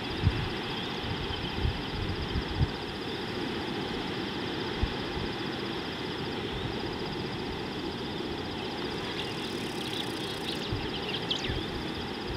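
Outdoor ambience at a watering hole: a steady hiss with a thin high whine and a few short low thumps. There are faint short chirps about nine to eleven seconds in.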